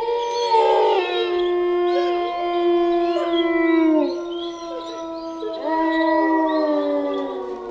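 A chorus of wolves howling, several long, overlapping calls held on steady notes. Two of them fall away at about four seconds, and another howl rises in at about five and a half seconds and sinks near the end.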